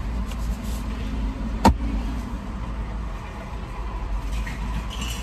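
Steady low rumble of a car idling, heard inside the cabin. One sharp click about a second and a half in.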